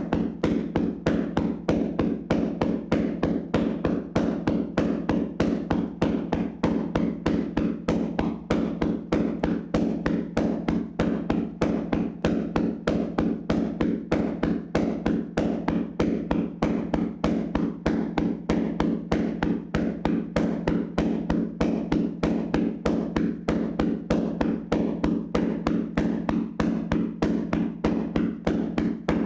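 Hands slapping and tapping on a person's body in a vigorous tapping massage: a fast, even run of dull slaps, about four a second.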